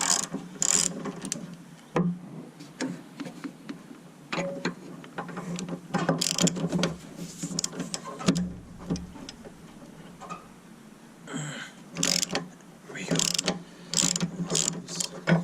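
Ratchet wrench clicking in irregular runs while 17 mm engine-mount bolts are loosened, with a few sharper metal knocks.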